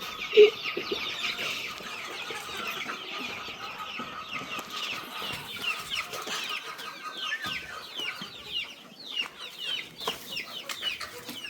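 A flock of Boschveld chickens: many young birds peeping in quick, falling chirps over clucking, with one short loud call about half a second in.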